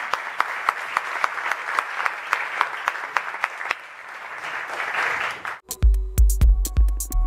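Audience applauding, thinning out then swelling again, cut off suddenly about five and a half seconds in by electronic music with a drum-machine beat and heavy bass.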